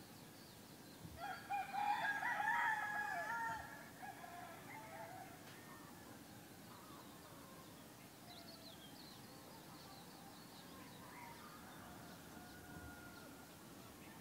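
A rooster crows once, about a second in, a single call lasting about two and a half seconds. Fainter short bird chirps and calls follow in the second half.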